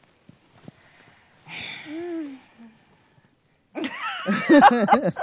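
Women laughing: a short breathy chuckle after a brief pause, then loud overlapping laughter from two women starting near the end.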